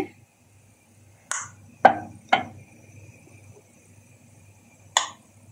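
Glass preserving jars set down one after another in a stainless steel pot: sharp knocks of glass on metal, each ringing briefly. There are four, one a little after a second in, two close together around two seconds, and one near the end.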